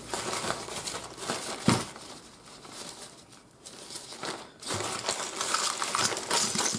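Lightweight nylon stuff sack rustling and crinkling as it is opened and handled, with one sharp knock about a second and a half in. The rustling dies down in the middle and picks up again near the end.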